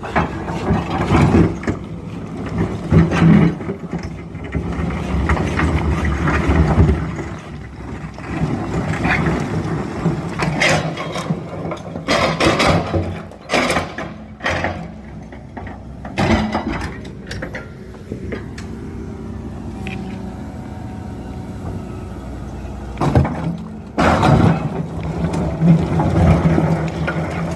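Excavator engine running steadily under load, with repeated metallic clanks and knocks from the machine at work.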